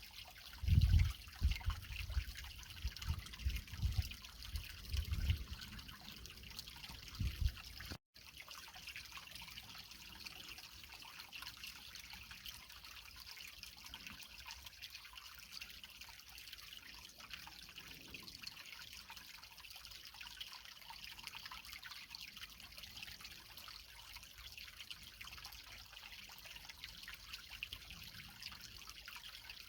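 Creek water running and trickling over rocks in a steady, bright hiss. During the first eight seconds, irregular low rumbling bumps sit under the water; about eight seconds in, the sound cuts out for an instant and then carries on steadily.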